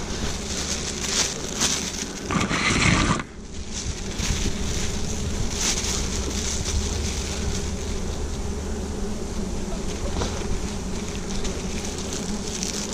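Swarm of wild honeybees buzzing steadily around their comb as it is smoked and cut, with wind on the microphone. A louder burst of rustling about two seconds in.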